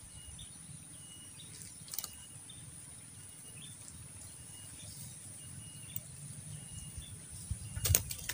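Quiet riverbank ambience: a bird repeats a short high chirp about once a second over a steady high insect drone. A few faint clicks come about two seconds in and again near the end.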